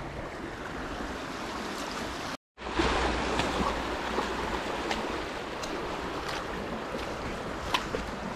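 River water flowing over rocks, a steady rushing noise. It cuts out briefly about two and a half seconds in, then returns a little louder, with a few light footstep clicks on a log and sand.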